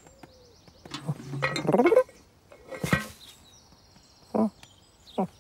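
A cartoon cat's strained, voiced mew that rises in pitch, then a single metallic clank with a short ring about three seconds in. Two short soft knocks come near the end, over faint chirping birdsong.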